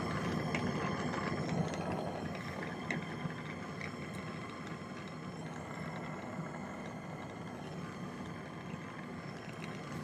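Jeweller's soldering torch flame running steadily while heating a fine silver bezel and sterling sheet to flow the solder, a little louder in the first two seconds. A few faint ticks sound over it.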